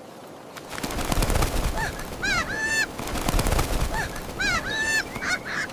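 Cartoon sound effects: a fast rattle followed by a few short squeaky calls that dip and rise in pitch, the pattern heard twice.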